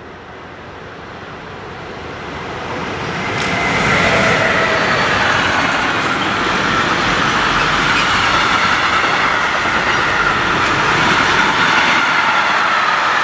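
Freight train of intermodal container wagons approaching and passing close by. The rolling rumble grows louder for about four seconds as the locomotive goes by, then holds steady as the wagons roll past, with high squealing tones from the wheels above it.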